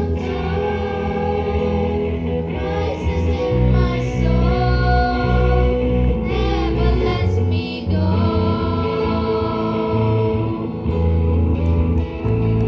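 Live band music with children singing: held sung notes over an electric bass guitar and keyboard.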